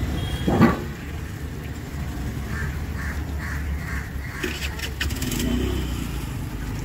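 Steady low rumble of street traffic, with a short loud sound about half a second in and a few sharp clicks around five seconds.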